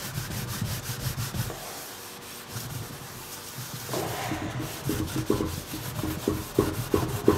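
Scotch-Brite scouring pad scrubbing a wet, foam-covered oven pan by hand: repeated back-and-forth rasping strokes, easing off for a couple of seconds, then stronger strokes from about four seconds in.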